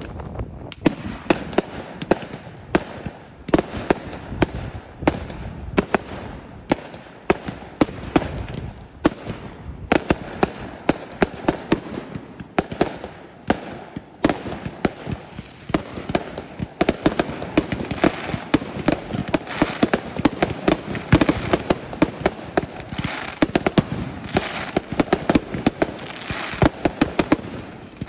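Fireworks display: a steady run of sharp aerial shell bursts, about two or three bangs a second, thickening into a denser, near-continuous barrage over the second half.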